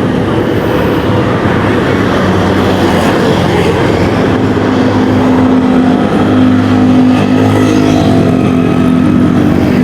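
Steady, loud motor-vehicle running noise, with a steady hum setting in about four seconds in.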